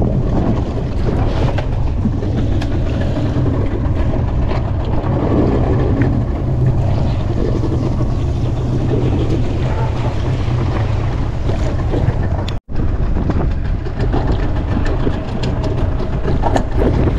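Strong wind buffeting the microphone on a boat at sea: a steady, loud low rumble. The sound cuts out for an instant about twelve and a half seconds in.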